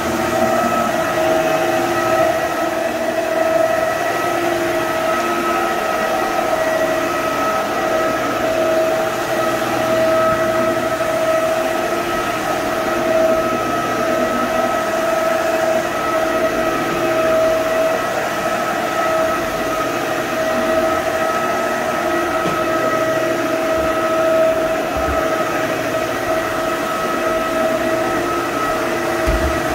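Corded electric wet floor scrubber running steadily as it is pushed over a hardwood floor, a constant motor whine with a high hum above it.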